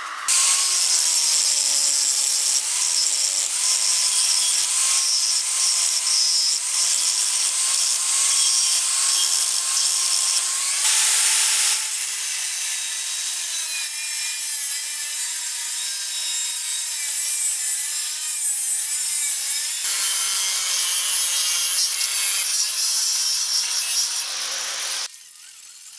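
Power tool running under load, a motor whine that wavers and dips in pitch beneath loud, harsh hissing from the material being worked. It starts abruptly, eases a little about halfway through, and cuts back near the end.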